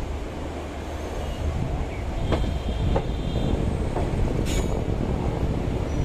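Passenger train coaches rolling over the track: a steady rumble of wheels on rails with scattered sharp clicks as the wheels cross rail joints. About two seconds in, a high-pitched wheel squeal lasting about a second as the train takes the curve.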